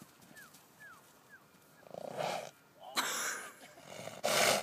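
Friesian horse snorting, blowing air hard through its nostrils three times, the last snort the loudest. The snorting is a sign of the horse growing tense.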